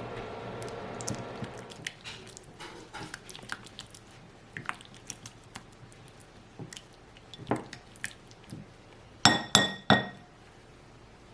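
Kitchen dishware and utensils being handled: a steady hum fades out in the first two seconds, then soft clicks and taps, and near the end three sharp clinks that ring briefly, like a utensil striking a glass dish.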